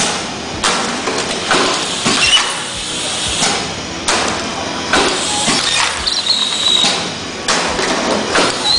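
Pneumatic clamshell denester cycling, with repeated clacks and short hisses of air from its cylinders and suction cups about once a second. A thin high whistle comes in about six seconds in.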